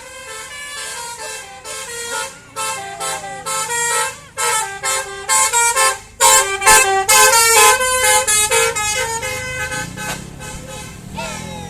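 A bus's telolet horn, a set of multi-tone horns playing a fast tune of short stepped notes that grows loudest in the middle. An engine hum rises underneath near the end.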